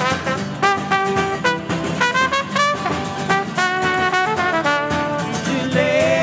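Trumpet solo of quick, short notes over a band's accompaniment, ending on a longer held note near the end.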